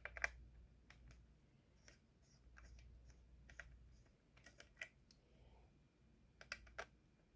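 Faint, scattered light clicks and taps of a screwdriver and small screws being worked on an opened laptop, undoing the cooling fan's screws, with a short cluster of clicks near the end.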